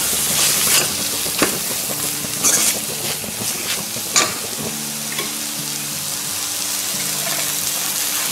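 Onion-tomato masala sizzling in a stainless steel pan while a steel ladle stirs it, with several sharp scrapes and knocks of the ladle against the pan in the first half, then a steady sizzle.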